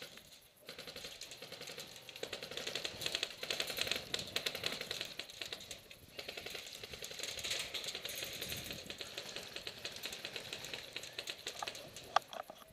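Airsoft guns firing rapid strings of shots, a dense continuous rattle that swells and eases. A single sharper, louder crack comes near the end.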